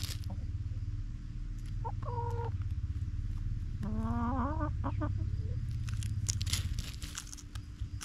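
Hens clucking while feeding: a short cluck about two seconds in and a longer wavering call around four seconds in, with quick sharp clicks of pecking near the end, over a steady low rumble.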